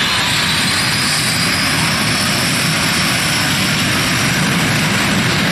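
The Rolls-Royce jet engine of the Aftershock jet-powered fire truck running: a loud, steady rush with a high turbine whine rising slowly in pitch.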